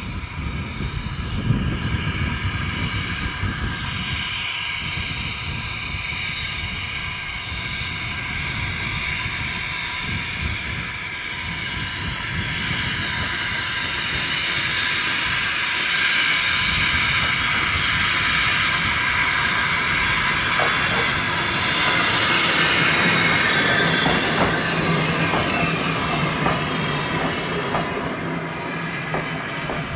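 Victorian 0-4-0 saddle tank steam locomotive No. 1340 'Trojan' running past with a vintage coach, its steam and running gear growing louder to a peak about two-thirds of the way through, then easing. A steady high ringing tone runs throughout, and in the second half the wheels click over the rail joints as the train passes.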